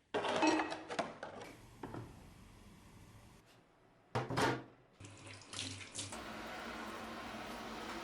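Tap water running and splashing in short separate bursts, then a steady flow for the last two seconds or so: a rusty axe head being rinsed of rust remover.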